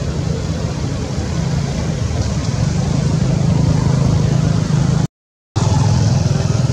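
Steady low engine rumble, broken by a half-second gap of silence about five seconds in.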